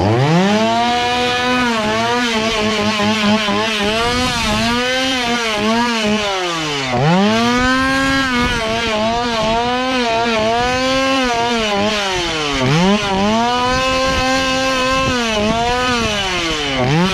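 Gas chainsaw engine running at high revs with a wavering pitch. It drops off and revs back up twice, and again at the very end.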